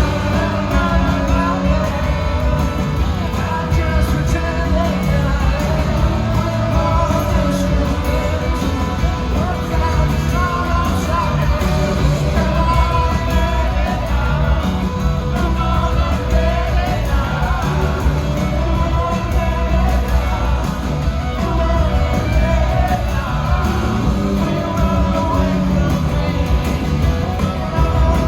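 Live rock band playing with a sung lead vocal over strong bass and drums.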